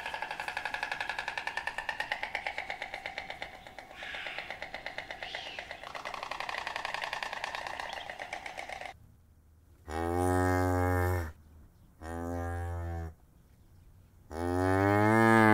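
A rapid, even buzzy pulsing that stops about nine seconds in, then cattle mooing: three low moos, about ten, twelve and fourteen seconds in, the last one the loudest, rising then falling in pitch and still going at the end.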